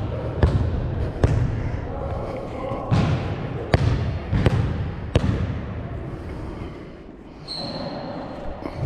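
Basketball dribbled on a gym floor, a bounce about every three-quarters of a second, each hit ringing in the hall. The bouncing eases off after about five seconds, and a short high squeak comes near the end.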